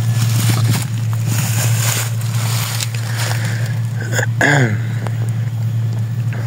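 Deutz-Fahr AX 4.120 tractor's diesel engine idling with a steady low hum while it stands still. About four seconds in, a brief sound slides down in pitch.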